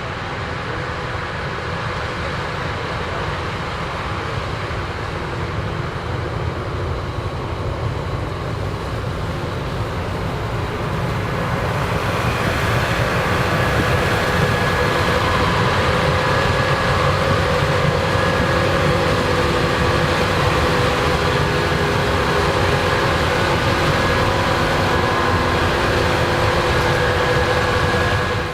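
Combine harvester running through standing corn: a steady heavy machine drone with a layered high whine, growing louder about twelve seconds in as it draws closer.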